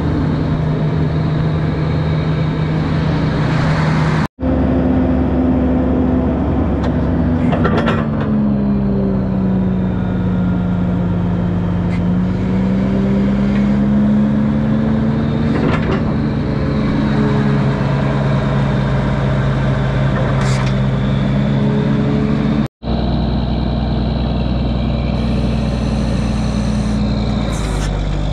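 Heavy diesel truck engine running steadily, its pitch sagging a few seconds in and slowly climbing back. The sound cuts out for an instant twice.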